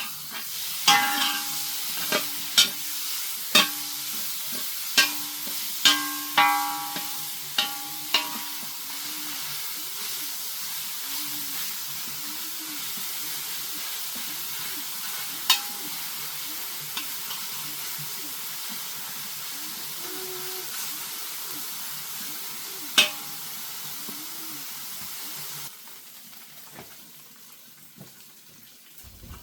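Food stir-frying in a metal pan with a steady sizzle, while a utensil knocks and scrapes against the pan in quick, ringing strikes over the first eight seconds, then only now and again. Near the end the sizzle suddenly drops away.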